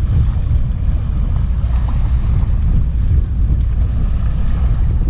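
Strong wind buffeting the microphone, a steady low rumble, with small waves washing over the shoreline rocks.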